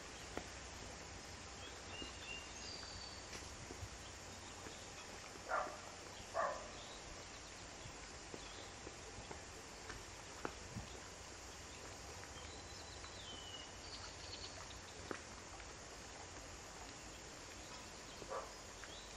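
Quiet seaside bird ambience: a faint steady hiss with scattered brief high-pitched chirps, and two short, louder bird calls about six seconds in.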